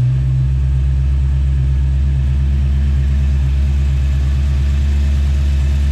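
BMW E92 M3's S65 4.0-litre V8 idling steadily and evenly.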